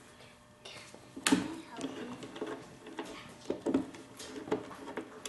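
Scattered clicks, taps and knocks of plastic and metal parts being handled on a backpack leaf blower during engine repair, with a sharper knock about a second in.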